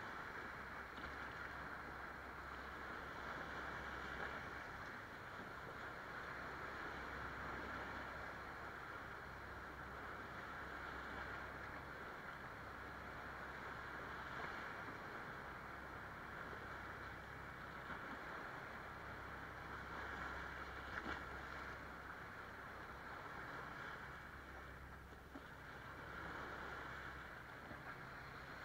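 Small waves breaking and washing over sand and around rocks, a continuous hiss that swells and eases as each wave comes in, with a steady low rumble underneath.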